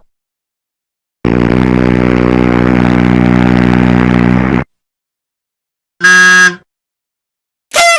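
Comedy sound-effect clips played one after another: a steady, buzzy blare lasting about three and a half seconds, then a short blast about six seconds in, and another starting near the end with a quick downward bend in pitch.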